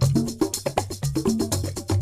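Background music with a steady percussive beat of woodblock-like clicks, a bass line and short melodic notes.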